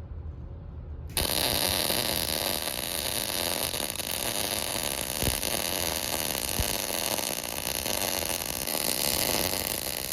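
Electric welding arc: a steady crackling hiss that starts abruptly about a second in and keeps going without a break.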